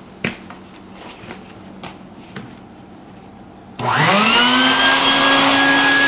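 A few light clicks and knocks of handling, then about four seconds in a DeWalt power drill's motor spins up quickly and runs steadily at full speed.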